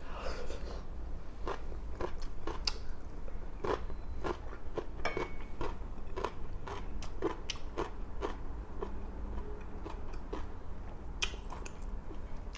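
Close-up chewing and crunching of food in the mouth, with irregular sharp crunches, some a second or so apart and some closer together. A steady low hum runs underneath.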